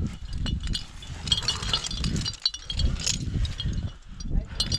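Metal climbing hardware, karabiners and trad protection racked on a harness, clinking and jingling as the climber moves, with many short ringing chinks over a low rumble.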